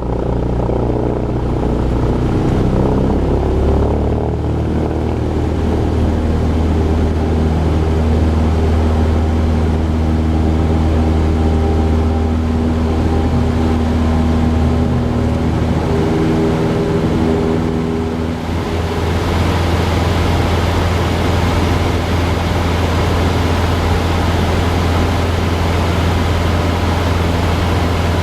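Cessna 172's piston engine and propeller droning steadily, heard from inside the cabin in flight. About two-thirds of the way in the engine note shifts and a rushing hiss grows louder.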